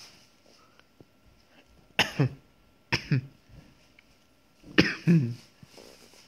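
A person coughing three times, a second or two apart, each a quick double cough.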